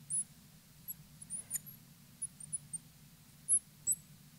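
Fluorescent marker squeaking across a glass lightboard while writing: a string of short, high-pitched squeaks, the loudest about three and a half seconds in.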